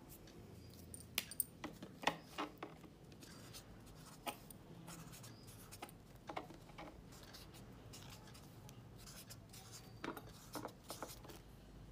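Black felt-tip marker drawing on paper: faint scratching of the tip with a scattering of light taps on the table.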